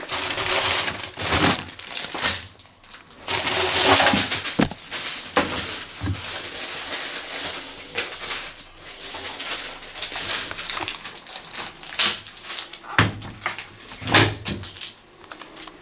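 Plastic packaging crinkling and rustling in bursts as the packed hoses and papers are pulled out of a front-loading washing machine's steel drum, with a few sharp knocks.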